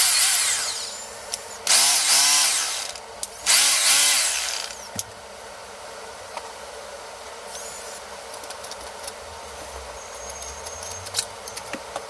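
Bosch GBH 2-28DV hammer drill switched on three times in short bursts of about a second and a half, its motor pitch rising and falling each time. After that there are only a few faint clicks.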